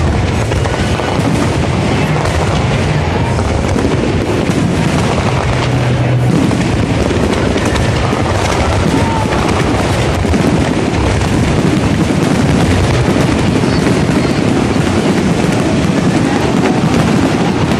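A large fireworks display going off in a dense, unbroken barrage of booms and crackling bursts, loud throughout.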